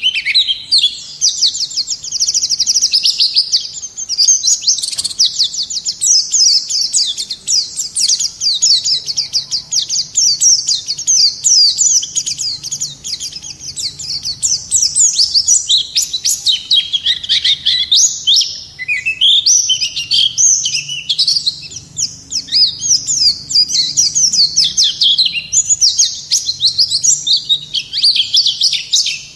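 White-eye (pleci) singing a long, unbroken warbling song of very rapid, high-pitched chirping notes, hardly pausing: the vigorous 'gacor' song used to train other birds and to lure them.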